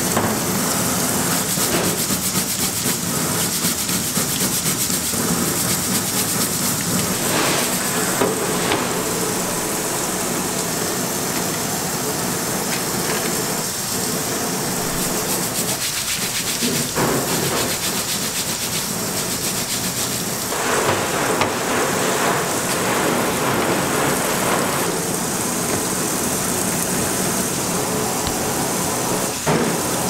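Tap water pouring steadily into a stainless steel sink while abalone are scrubbed under the stream with a plastic brush, the bristles rubbing against the shells in a few rougher stretches.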